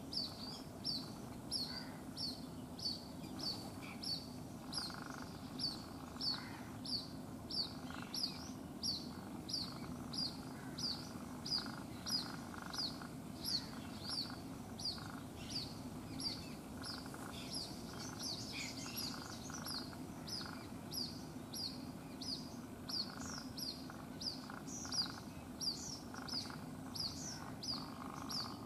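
White-breasted waterhen chick calling non-stop: short, high peeps repeated at an even pace of about two a second.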